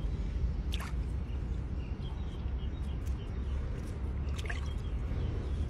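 Water sloshing and dripping in a basin as a fish is handled and cleaned in it by hand, with a couple of short sharp splashes, over a steady low rumble.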